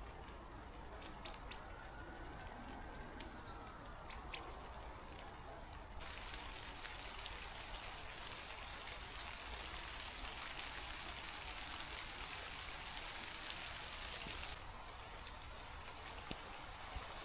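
Steady rain hissing, with a few short, high bird chirps in the first few seconds. The rain grows much louder and brighter suddenly about six seconds in, and drops back just as suddenly near the end.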